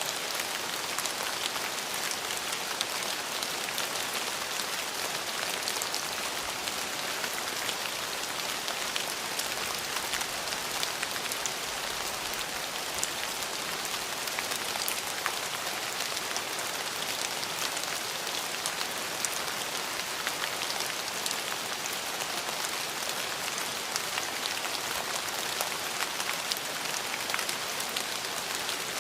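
Steady rain falling, a constant hiss with many fine drop taps.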